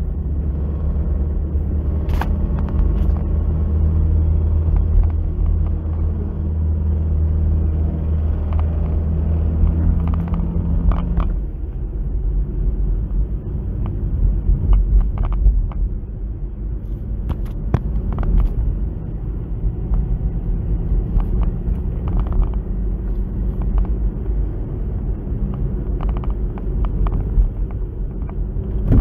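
Second-generation Toyota Vios driving in traffic: a steady low rumble of engine and road noise. The engine hum drops lower about ten seconds in as the revs ease from about 2,300 to about 1,600 rpm, with occasional short knocks and clicks.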